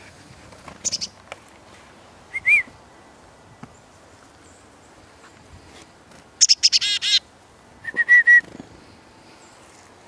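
Small songbirds calling: a few short high notes and a brief rising-and-falling whistle, then a rapid chick-a-dee-dee style call of high notes running into buzzy 'dee' notes, and a quick run of level notes just after.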